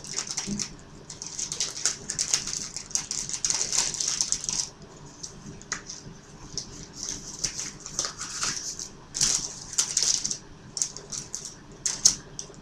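Irregular crinkling and rustling in short hissy bursts, with a sharp click about twelve seconds in.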